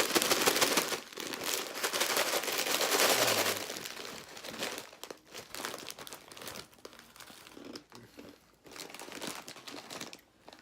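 Plastic packet of a dry ramen-noodle snack crinkling and rustling, loud for the first three and a half seconds, then quieter scattered crinkles with light crunches of the dry noodles.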